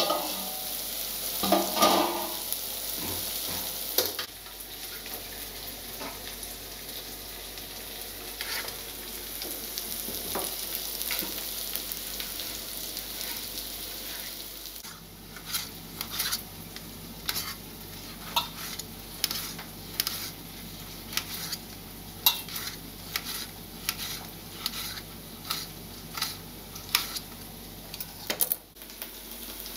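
Chopped shallots, green chillies and garlic sizzling in oil in a kadai, being sautéed until golden while a slotted metal spatula stirs them. From about halfway the spatula scrapes and clinks against the pan in a regular rhythm, one or two strokes a second.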